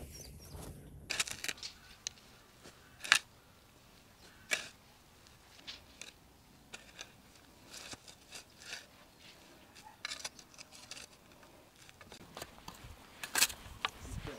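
Shovel digging into soil: irregular scrapes and crunches of the steel blade cutting in and lifting earth, with a few sharp clinks, the sharpest about three seconds in.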